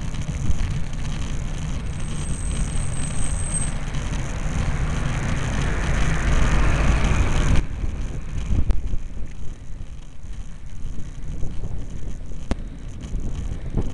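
Wind rushing over the microphone of a camera riding on a bicycle climbing a road, with the rattle of the bike. The rush builds and then drops off suddenly about halfway through, leaving a few sharp clicks.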